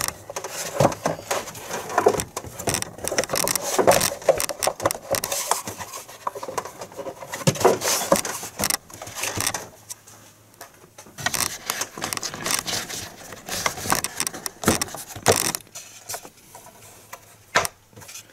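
Plastic engine cover being worked down onto its mounting posts, its rubber grommets pressed over the posts: irregular rubbing, scraping and sharp plastic knocks and clicks. The handling is densest in the first ten seconds and thins out after that, with a single click near the end.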